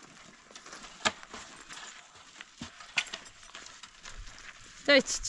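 Goats milling around a feed bucket: a few scattered sharp clicks and knocks, then near the end one short bleat from a goat.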